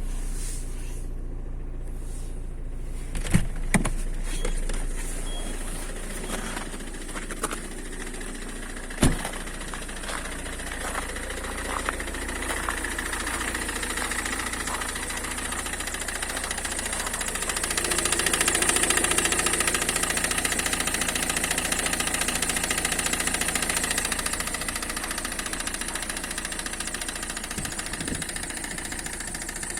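Citroën C5 2.0 HDi four-cylinder common-rail diesel running at idle with a knock from the engine's right front side, with a few sharp clicks in the first ten seconds and the engine growing louder past the middle. The knock is typical of a failing crankshaft damper pulley, not the high-pressure fuel pump that the owner suspected.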